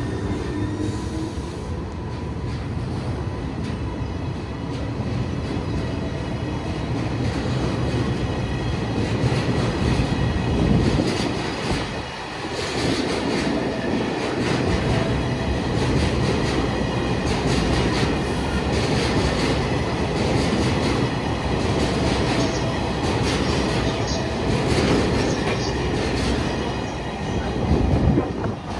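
Freight train hauled by a JR Freight EH200 electric locomotive passing, its wheels clacking over rail joints in a dense run of clicks.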